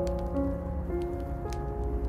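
Background music: slow held notes changing pitch every half second or so, with a few faint clicks over it.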